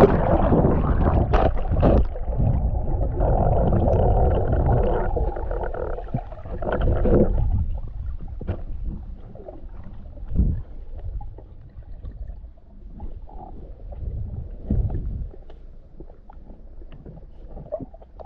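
Muffled underwater sound picked up by a camera in its housing during a breath-hold dive. Rushing water and bubbles are loudest for the first several seconds as the diver goes under. After that comes a lower, quieter rumble with occasional dull knocks.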